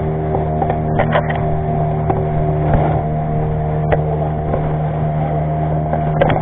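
Boat engine running at a steady pitch, a constant drone heard on board. A few short knocks and clicks come about a second in, near four seconds and near the end.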